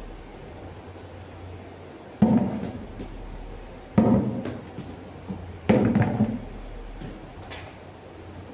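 Three loud thuds, about two seconds apart, each trailing off in a short rattle over about half a second, over a steady low hum.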